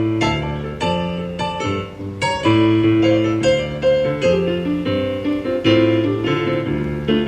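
Keyboard played with a piano sound, chords struck one after another in a steady rhythm, each ringing out before the next.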